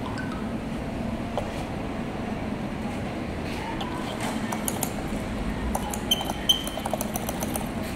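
A cloth rubbing across bare LCD glass, giving a run of small clicks and a couple of short squeaks in the second half, over a steady low hum.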